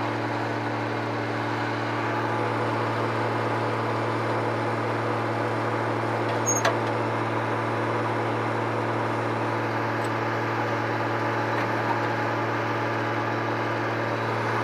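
Claas Mercator 75 combine harvester's Mercedes six-cylinder diesel running steadily, held at high revs, with a brief click about six and a half seconds in.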